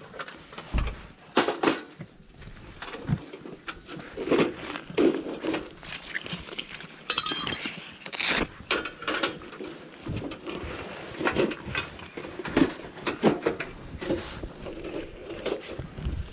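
Irregular metallic clattering and knocking as the metal panels of a folding wood stove are taken apart and handled for packing.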